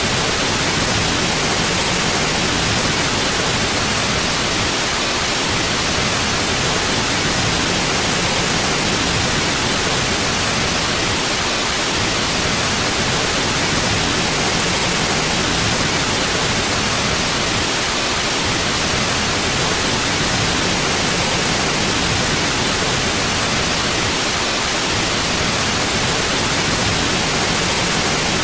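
Steady, unchanging white noise: an even hiss across the whole range, with no rhythm or events.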